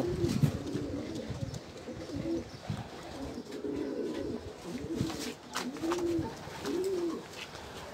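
Domestic pigeons cooing: a string of low, arched coos, coming closer together in the second half.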